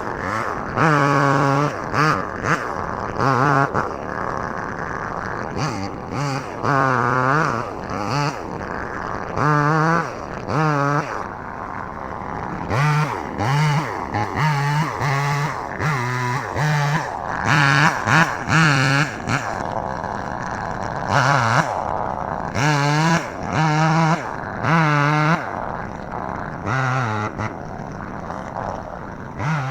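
Chainsaw revving in repeated short bursts, about a second each, and dropping back to a lower running sound between them, as it cuts up trees.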